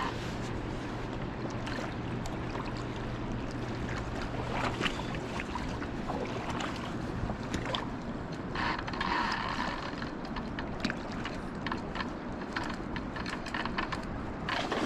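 A boat motor running steadily over wind and river noise; the motor's low hum drops away about four and a half seconds in.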